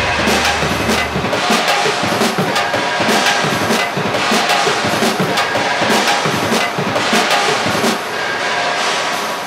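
Background music with drums and percussion.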